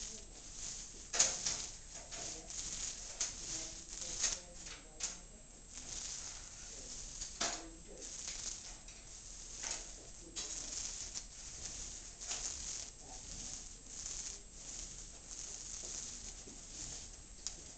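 Paint roller on an extension pole being worked back and forth across a ceiling: repeated hissing strokes, with a few louder knocks, the loudest about a second in.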